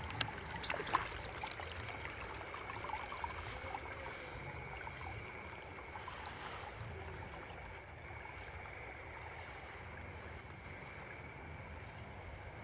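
Water trickling and sloshing in a flooded rice paddy, with a few sharp clicks in the first second. Under it runs a low rumble of wind on the microphone.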